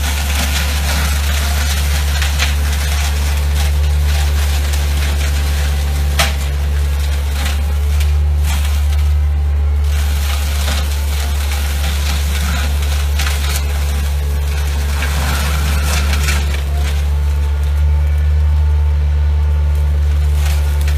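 Robustrack LS3-1000 hydraulic flail mower head with hammer blades spinning and shredding hedge growth, over the steady low drone of the midi excavator's diesel engine driving it. A sharp crack about six seconds in.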